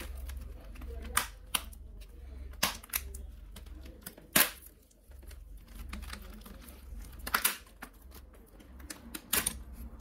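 Sharp clicks and snaps of a metal keyboard backing plate being pried and lifted off a laptop's plastic palm-rest case, about six separate clicks, the loudest near the middle.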